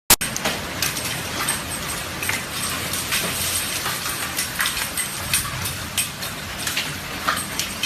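Heavy storm downpour: a steady hiss of rain with many irregular sharp knocks of hailstones striking hard surfaces.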